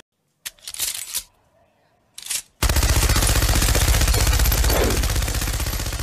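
Heavy machine gun sound effect: after two short noises, it opens up about two and a half seconds in and fires one long rapid burst.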